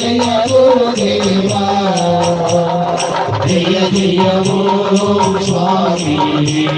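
Devotional Ayyappa arati song: a sung, chant-like melody over a steady high percussion beat of about four strokes a second.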